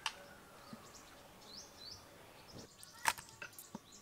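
Birds chirping with two short rising chirps, and a few sharp clicks or knocks, the loudest about three seconds in.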